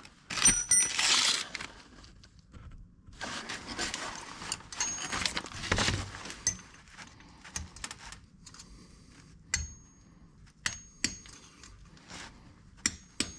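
Small metal hand tools, pin punches, clinking and rattling as they are handled, with scattered sharp metallic clicks that ring briefly, several of them in the second half.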